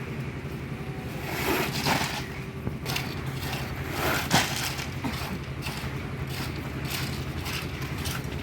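A steady low engine hum of site machinery, with gravelly crunching and scraping from concrete work, louder about one and a half seconds in and again around four seconds in, where there is one sharp knock.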